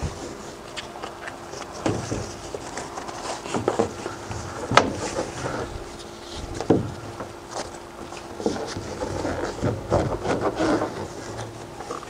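Nylon tie-down strap being threaded through its buckle and pulled over a canoe hull: the webbing rustles and slides, with scattered clicks and knocks from the buckle and hull, the sharpest about five seconds in.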